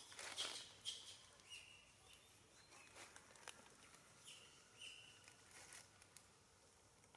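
Faint rustling and clicks of long-tailed macaques grooming each other's fur, loudest in the first second, with a few short, faint high chirps spread through the quiet.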